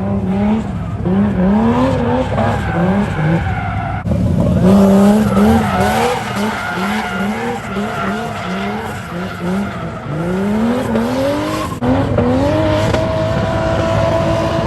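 Cars drifting: an engine revving up and dropping back over and over under hard throttle, with tyres skidding. The sound changes abruptly about four and twelve seconds in.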